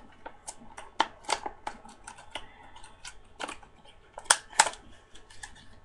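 Plastic lure packaging being handled and opened: a run of irregular sharp clicks and crackles, the two loudest about four and a half seconds in.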